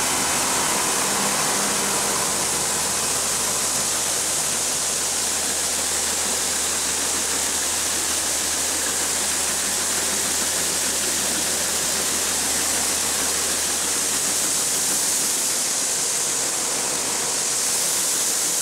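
Farm harvest machinery running: a steady rushing hiss over a faint, even low engine hum, unchanging throughout.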